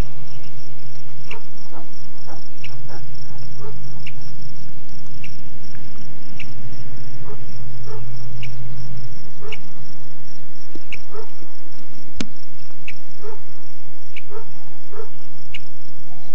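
Outdoor ambience of a short high chirp repeating evenly about once a second, with fainter lower chirps between. A low hum runs under it and stops about halfway through, and there is a single sharp click a few seconds before the end.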